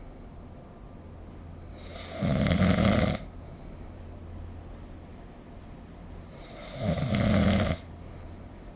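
A sleeping person snoring: two loud snores, each about a second long and about four and a half seconds apart, with a faint low hum between them.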